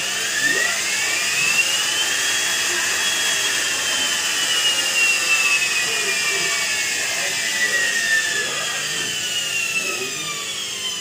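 Front-loading washing machine's brushed drive motor on a test run with newly fitted carbon brushes, whining as it speeds up over about two seconds, holding, then gradually slowing with the pitch falling.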